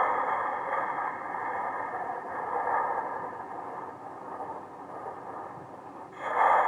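Halloween sound-effect module inside a Lionel caboose playing a spooky effect: a rushing, hiss-like noise that starts loud and slowly fades, then a fresh loud one starts near the end.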